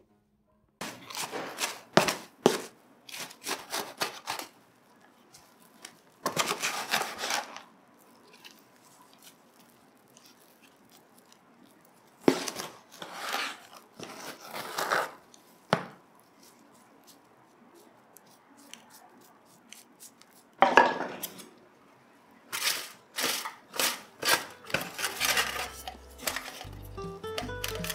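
Several spells of rustling and scraping with sharp clicks, separated by quieter gaps: hands handling a plant, pot and potting materials while repotting.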